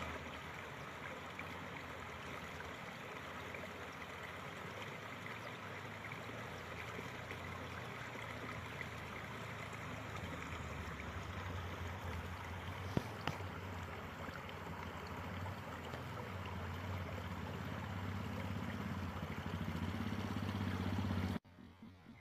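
Shallow stream running over rocks, with a motorcycle engine running under it that grows louder through the second half as the bike approaches. The sound cuts off suddenly near the end.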